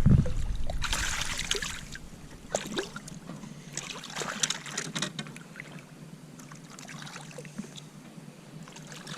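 Water lapping and splashing against a fishing boat's hull in irregular bursts, over a steady low hum.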